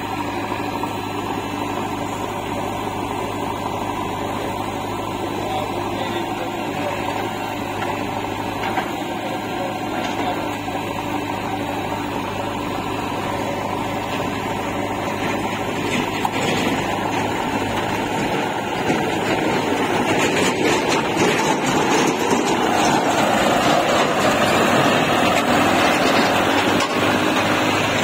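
Diesel engines of a Massey Ferguson 241 DI tractor and a JCB 3DX backhoe loader running steadily. Over the last several seconds the sound grows louder as the tractor pulls away hauling a trolley loaded with soil.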